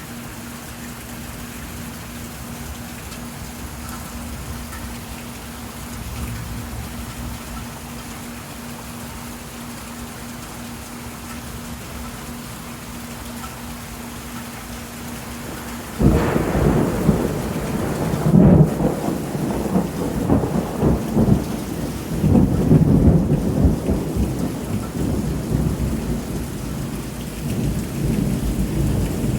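Thunderstorm: steady rain, then about halfway through a sudden, much louder low rumble sets in. It surges and fades and keeps going.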